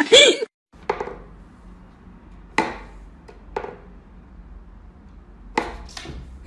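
A burst of laughter cuts off in the first half second. Then come about six sharp wooden knocks and taps from a wooden whack-a-mole cat toy as a cat paws at its pop-up figures, spaced irregularly, the loudest pair near the end.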